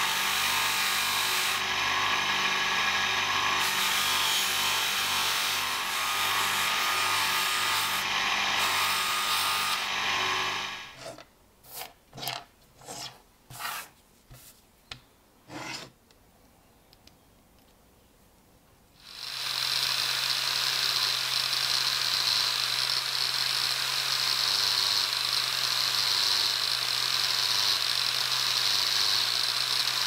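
A motor-driven buffing wheel runs steadily while a small lighter part is pressed against it and rubbed. It stops about 11 seconds in, followed by several short bursts and a few seconds of near quiet. Near 19 seconds a handheld grinder with a disc starts and runs steadily to the end.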